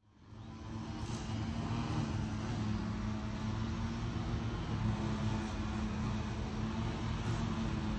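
Steady low rumble of outdoor background noise, with a faint click about a second in and another near the end.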